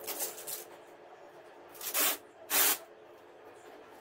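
A black strap being handled: light rustling at the start, then two short, loud rasping pulls about two seconds in.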